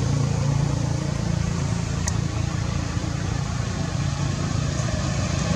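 A motor vehicle engine running steadily with a low hum, with one faint click about two seconds in.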